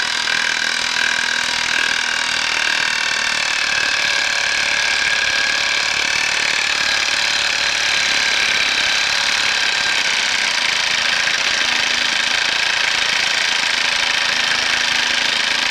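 Chicago Electric 18-volt cordless 1/4 in. hex impact driver hammering without pause as it drives a rusted 3/8 in. lag screw into the edge of a 2x4, its hammer-and-anvil mechanism under heavy load.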